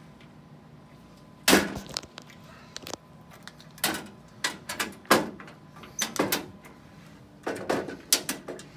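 A string of sharp knocks and clunks in irregular clusters, the loudest about a second and a half in, over a faint steady hum.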